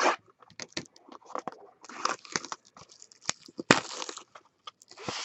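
Plastic shrink wrap being torn and pulled off a trading card box, crinkling in irregular scratchy bursts, with a sharp crack about three and a half seconds in.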